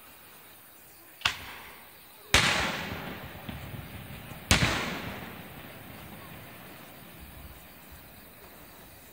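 Aerial firework shells bursting overhead: three sharp bangs, about a second in, just after two seconds and about four and a half seconds in. The last two are the loudest, and each trails off in a long rolling echo.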